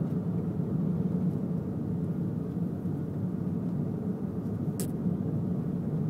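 Steady low rumble of a car driving slowly, heard from inside, with a brief faint tick near the end.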